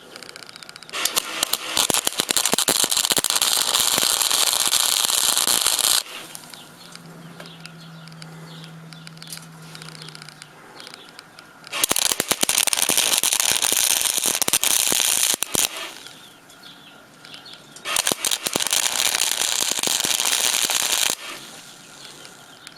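Small 80-amp MIG welder laying tack welds on sheet metal: the arc crackles and sizzles in three runs of a few seconds each, with short pauses between them.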